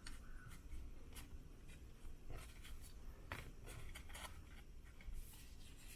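Faint rustling and soft ticks of trading cards being handled and slid past one another, with a few light flicks scattered through.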